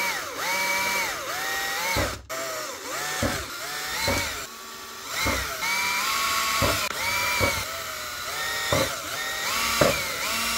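Cordless drill motor whining in a series of short bursts as a small bit drills holes in a 3D-printed plastic part. The pitch climbs, holds and drops with each squeeze of the trigger, roughly a dozen times.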